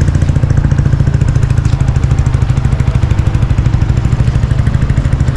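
A small engine running steadily at close range, with a rapid, even low thud.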